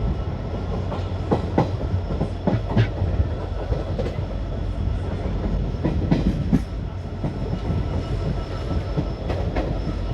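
Train running past on the track, wheels knocking irregularly over rail joints above a steady low rumble.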